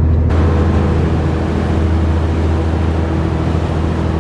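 Steady, loud, low drone of a tour boat's engine, with rushing noise that comes in suddenly about a third of a second in.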